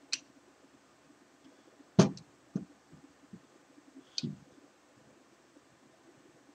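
A cast metal housing being handled and turned over on a cloth-covered bench: a few light clicks and knocks, with one louder, dull thump about two seconds in and another clunk a couple of seconds later.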